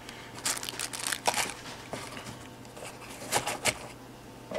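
Packaging handled by hand, rustling and crinkling in two short flurries, about half a second in and again past three seconds.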